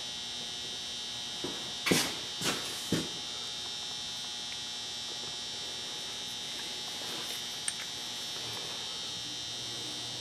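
A handful of sharp knocks and clanks of metal sander parts being handled at a workbench, four of them in about a second and a half, the loudest one about two seconds in, then a single light tick later. A steady high-pitched electrical whine and hum runs underneath.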